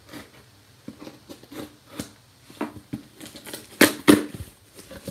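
Cardboard shipping box being handled and cut open with a blade: scattered scratching, rustling and light clicks, with two louder sharp clicks close together about four seconds in.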